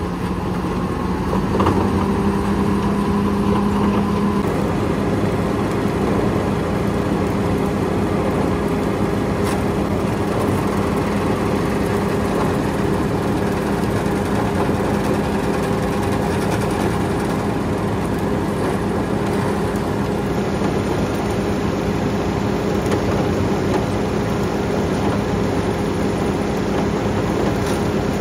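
A maize silage harvester's engine and chopper running steadily under load: a constant heavy hum with a low and a higher steady tone.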